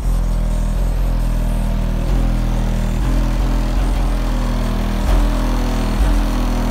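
Two Crossfire C7 15-inch subwoofers on a Crossfire C7 3k amplifier playing the bass line of a hip-hop track, heard from outside the car: loud, deep bass notes that change about once a second, with short sliding notes between them.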